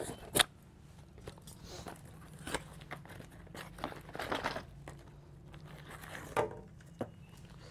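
Brown paper packet rustling and crinkling as it is handled and opened, with a few sharp clicks, the sharpest about half a second in.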